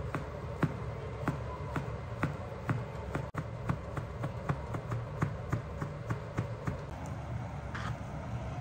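Chef's knife slicing a thin egg omelette into fine strips on a marble cutting board: sharp knocks of the blade on the board, about two to three a second and getting a little quicker, stopping about seven seconds in. A steady low hum runs underneath.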